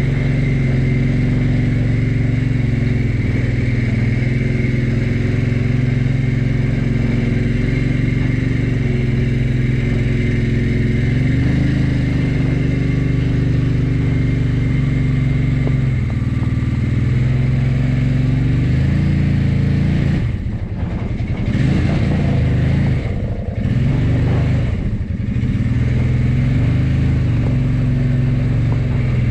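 Engine of the vehicle moving the sawmill, running steadily and easing off in revs briefly three times near the end.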